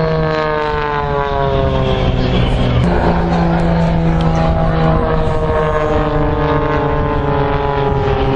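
Jet aircraft in a flying display passing, their engine whine sliding slowly down in pitch, with a second falling whine coming in about three seconds in, over a steady low drone.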